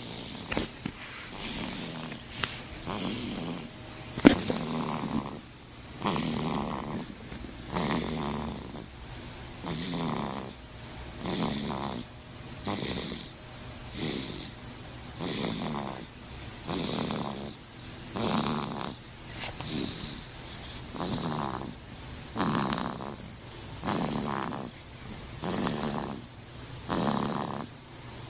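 Steady, rhythmic snoring, one snore about every second and a half, with a sharp click about four seconds in.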